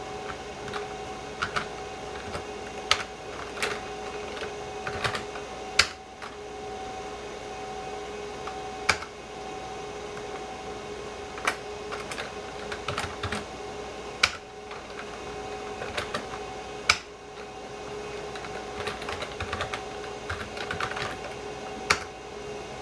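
Typing on a computer keyboard: irregular runs of key clicks with a few louder single strokes spaced a few seconds apart, over a steady two-tone hum.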